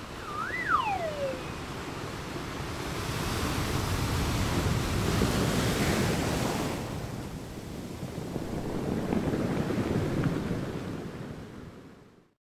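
Ocean waves washing in, swelling twice and fading out near the end. A short whistle that rises and then falls comes in the first second.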